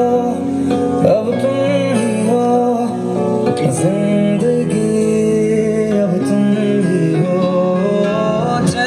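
A song with singing and guitar playing loudly through a JBL Flip 3 portable Bluetooth speaker during a sound test, the vocal line gliding and bending over sustained accompaniment.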